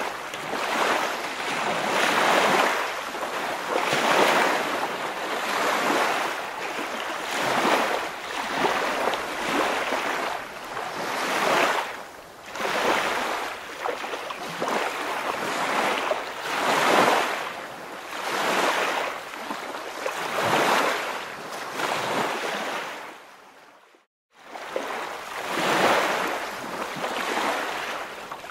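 Waves washing in a regular rhythm, a surge every second and a half to two seconds, with no engine or voice. The sound drops out for about a second roughly three-quarters of the way through.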